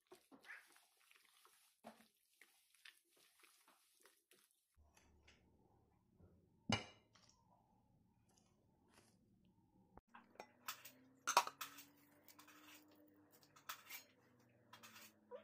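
Soft scraping and squelching of a spoon mixing chicken in a thick yogurt marinade in a glass bowl, then a single sharp clink about seven seconds in and a run of clinks and knocks of glass and utensils near the end.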